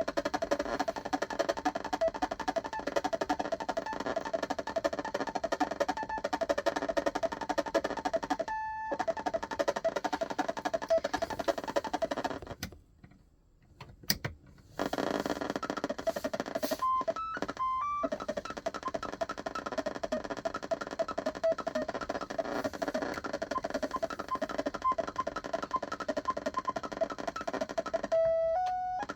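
Mr. Christmas Marquee Merry-Go-Round's built-in electronic music playing a tune, stopping for about two seconds near the middle, with a single click in the gap, before the music starts again.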